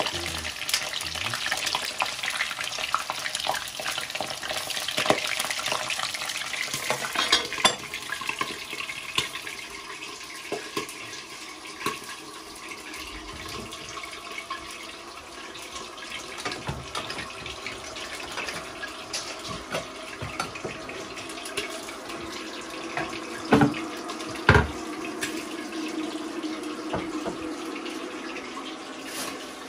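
Water running from a tap into a sink, with small clinks and clatter of kitchenware, and two sharp knocks about two-thirds of the way through.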